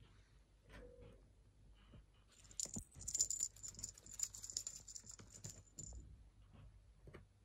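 Small bell on a cat teaser wand toy jingling and rattling for a few seconds in the middle as kittens paw at it, with light scattered ticks and taps before and after.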